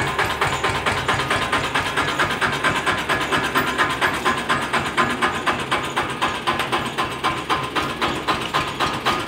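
1973 Eicher tractor's diesel engine running at low speed as the tractor creeps forward, an even beat of about four firing pulses a second.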